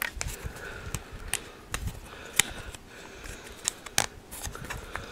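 Plastic hard-drive tray being handled and pressed onto a 3.5-inch hard drive's four mounting pins: scattered sharp clicks and taps of plastic against the drive's metal, about eight or nine, over a low rustle of handling.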